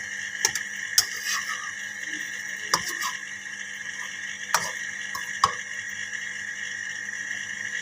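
Egg-coated bread frying in ghee in a nonstick pan, with a steady hiss of frying. A metal slotted spoon clinks against the pan and bread about five times.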